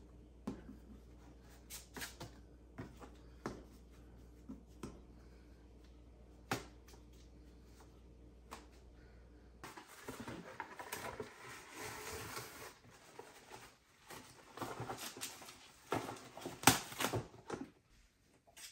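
Soft taps and pats of hands rounding pizza dough balls on a silicone mat, over a faint low hum. After a cut, about halfway through, plastic cling wrap is pulled off its roll and crinkles as it is spread over a sheet pan, with the loudest sharp crackles near the end.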